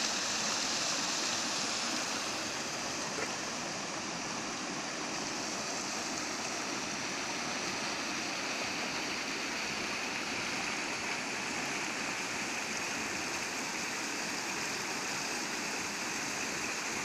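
Shallow rocky creek rushing over stones and small riffles: a steady, even rushing, a little louder in the first two seconds.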